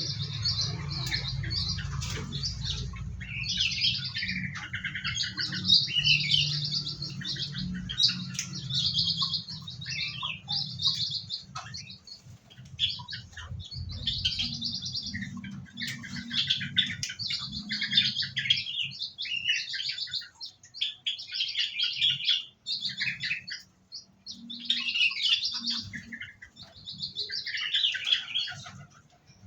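Many small aviary songbirds chirping and calling over one another in quick, overlapping bursts, with a low hum underneath that stops about eight seconds in.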